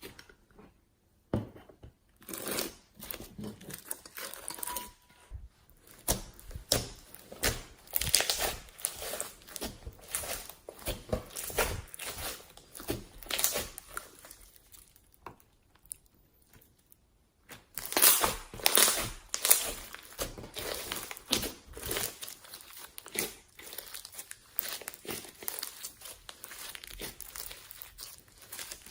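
Slime being worked by hand, giving a dense, irregular run of crackling and popping sounds. It pauses briefly about a second in and again for a couple of seconds around the middle.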